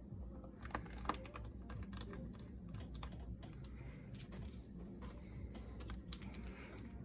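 Light, irregular clicks and taps of hands working on the plastic case of a Samsung Chromebook 4 as it is put back together, with two sharper clicks about a second in.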